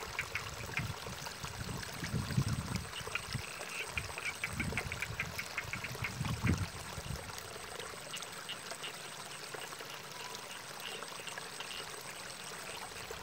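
Ditch water trickling, with rapid series of short clicking animal calls through the first half and again briefly near the end. A few dull low rumbles come in the first half.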